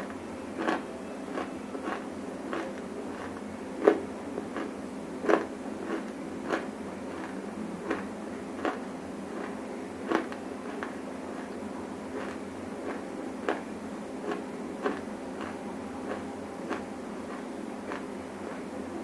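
Dry clay being chewed close to a microphone: short sharp crunches every half second to a second or so, over a steady low hum. The loudest crunches come about four and five seconds in.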